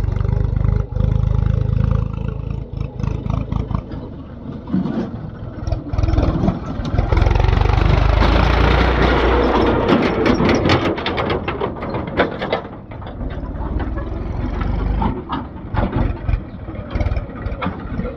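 Backhoe loader's diesel engine working under load, rising and falling in revs. In the middle there is a loud rattling, rushing stretch about six seconds long.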